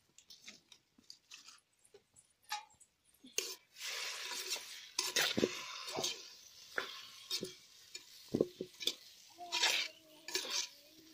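Metal spoon stirring chopped raw mango pickle in a clay pot, knocking and clinking against the pot. A sizzling hiss from the hot pot comes in about three seconds in and dies away over several seconds.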